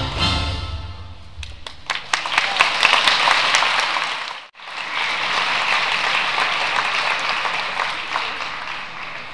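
Music with strings fades out over the first couple of seconds, then an audience applauds. The clapping breaks off for an instant about four and a half seconds in, comes back and slowly fades.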